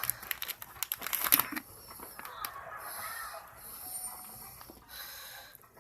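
Squishy soap dough being squeezed and kneaded by hand in a bowl, with irregular crackling and squelching clicks, loudest about a second in.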